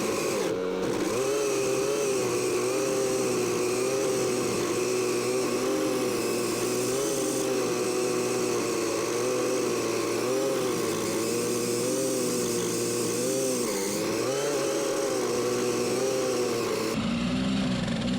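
Ryobi S430 four-stroke powerhead driving a pole-saw chain at high speed through a dead branch. The engine note wavers up and down as the chain bites. Near the end it drops to a lower idle.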